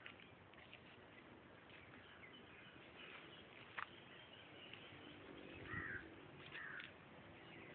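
Faint bird calls over a quiet outdoor background: a few short, scattered chirps, a louder call about six seconds in, and one sharp click near the middle.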